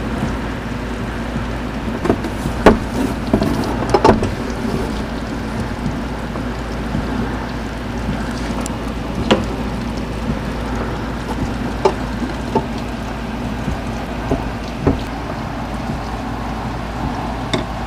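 Steady low hum and noise with a handful of short, sharp clicks and knocks. The loudest come about two and a half and four seconds in, with others scattered through the rest.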